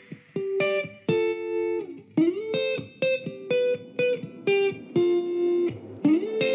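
Background music: a melody of short plucked notes, two of which slide up in pitch, about two seconds in and again near the end.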